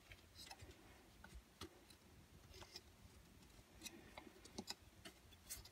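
Near silence with faint, scattered small clicks and taps as fingers work the timing belt and pulley of an opened Honda GX25 engine into place.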